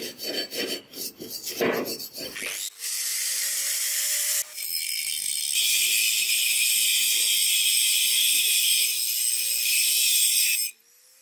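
Quick scraping strokes of a hand tool across a steel axe blank, then an angle grinder with a flap disc grinding the steel in a steady high hiss, with a brief break about four and a half seconds in. The grinding cuts off shortly before the end.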